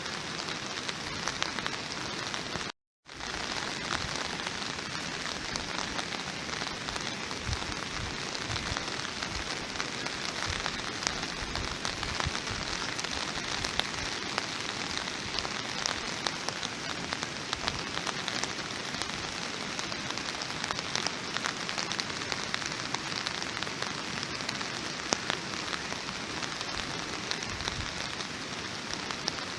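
Steady rain falling, an even hiss with many individual drops pattering and ticking on a surface. About three seconds in the sound cuts out completely for a split second, then resumes.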